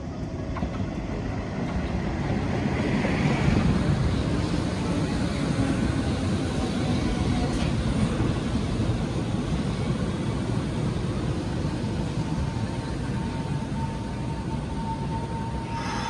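Train running past on the line by the station, building up over the first few seconds and then holding steady. A steady high whine joins near the end.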